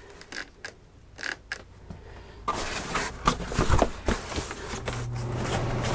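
A few clicks from the RV air conditioner's wall control. About two and a half seconds in, the ducted RV air conditioner starts up with a rush of air through the return, now fitted with an RV AC Silencer baffle. Near the end a steady low hum joins the airflow.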